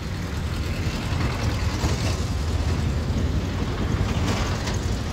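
Engines of a bus and a JCB backhoe loader running as they drive through flood water on a street, a steady low rumble with water swishing around the wheels.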